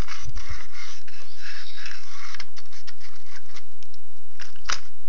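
Dry, scratchy scraping of weathering paint being dragged across a plastic model locomotive shell, most continuous in the first couple of seconds, then breaking into scattered light taps and clicks with one sharper click near the end.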